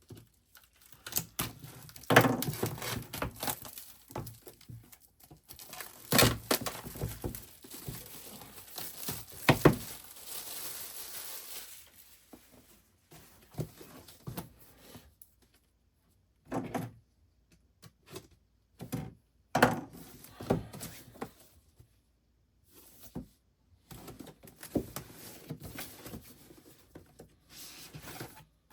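A cardboard product box and its packaging being opened by hand: irregular knocks and thunks of the box and its parts, with crinkling and a few seconds of steady rasping about ten seconds in, and quiet pauses between.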